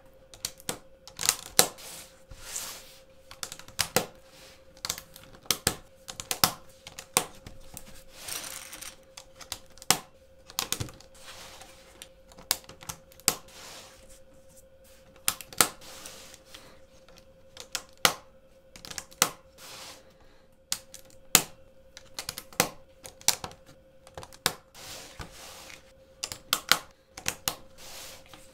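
Plastic LEGO plates clicking and knocking against each other as a hinging LEGO build of stacked plates is flexed into new shapes: irregular sharp clicks, at times several a second, with short scraping slides between them. A faint steady tone runs underneath.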